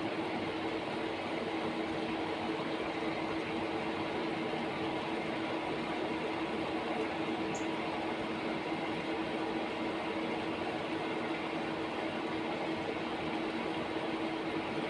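Steady machine hum and hiss with a constant low tone, unchanging throughout, with one faint tick about halfway through.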